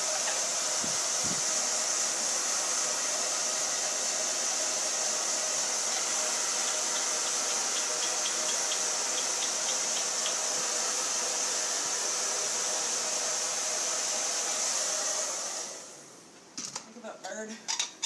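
Handheld hair dryer blowing steadily, then switched off about 16 seconds in, followed by a few short sharp sounds.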